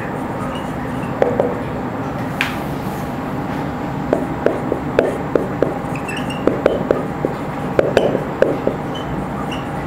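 Marker pen squeaking and tapping on a whiteboard in short strokes: one pair about a second in, then quick clusters through the second half. Under it runs a steady background hiss.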